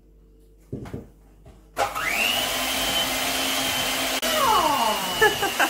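Electric hand mixer switched on about two seconds in, after a couple of soft knocks, then running steadily with a high whine as its beaters work cubes of butter into cake batter in a glass bowl.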